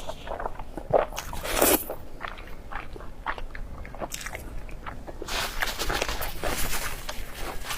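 A person eating pork close to the microphone: crisp bites and crunchy chewing with small wet clicks. The crunching comes thick from about five seconds in until near the end.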